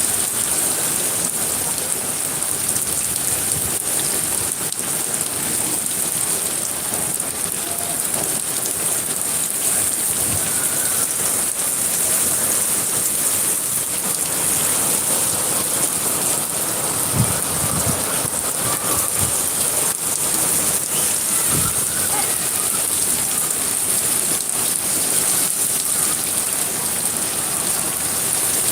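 Steady rain falling, a dense even hiss throughout, with a few brief low thuds a little past halfway.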